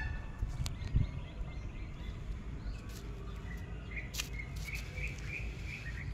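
Small birds chirping in the background, with a run of short chirps from about four seconds in, over a steady low rumble. A few sharp clicks, the loudest a thump about a second in.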